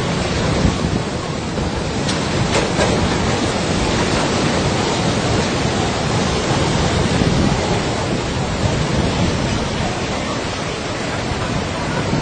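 Loud, steady rushing of storm wind and rough water, with wind buffeting the microphone.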